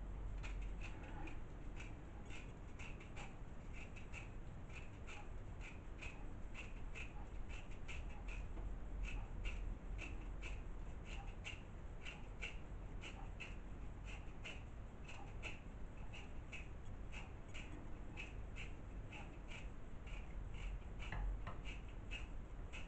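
Faint, frequent small clicks and scrapes of a small knife cutting the peel off a lemon by hand.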